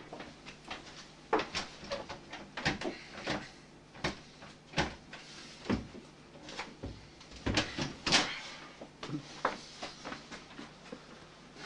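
A closed interior door being worked at by hand: an irregular run of clicks, knocks and a few heavier thuds from the handle and door, the loudest cluster about eight seconds in.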